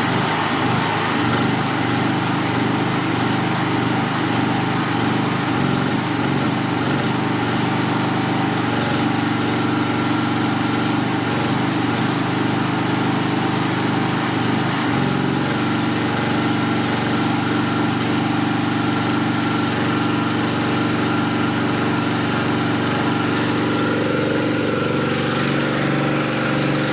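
Small 2.5 kW petrol generator engine, converted to run on natural gas through a gas carburettor, running steadily. Its note shifts slightly about halfway through and again near the end.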